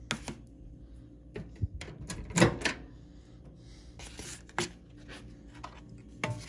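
Clicks and knocks of a countertop microwave's door being released and swung open and a paper plate being set inside. The loudest clunk comes about two and a half seconds in.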